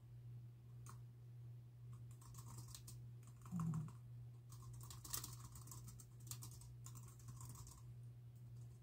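Typing on a computer keyboard: runs of quick key clicks starting about two seconds in, with short pauses between runs, over a steady low hum. A short low-pitched sound, the loudest thing here, stands out a little before halfway.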